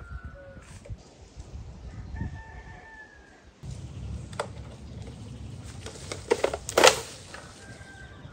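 A rooster crowing, one held call about two seconds in, following the tail of an earlier crow. From about halfway, a few sharp knocks and rustles among the branches, the loudest just before seven seconds, as a harvesting pole strikes a pear tree.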